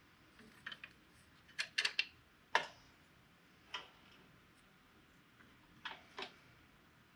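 A series of light, irregular clicks and knocks, about nine in all, the loudest a little over two seconds in, as objects are handled and set down on a shop bench.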